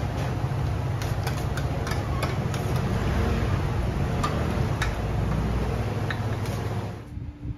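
Light clinks and taps of ceramic rice bowls and a ladle against stainless-steel pots and trays, over a steady low rumble of background noise. The sound cuts off suddenly about seven seconds in.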